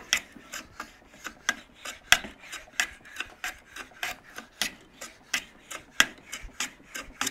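A No. 5 metal bench plane taking quick, short strokes over a small block of wood, about three scraping strokes a second, each cutting a shaving.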